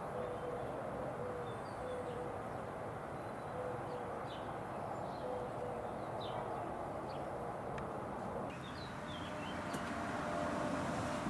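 Outdoor garden ambience: a steady low background rumble with scattered short, high chirps from small birds and a faint repeated low tone through the first half. The background changes abruptly about three quarters of the way through.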